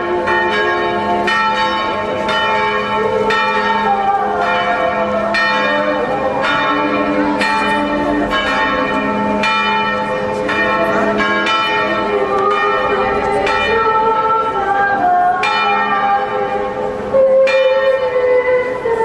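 Church bells pealing: several bells of different pitch struck about once a second, each note ringing on into the next, with a louder stroke near the end.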